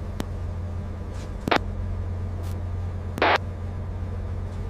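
Steady low drone of a crab boat's engine, with a click near the start and short bursts of hiss about one and a half and three seconds in.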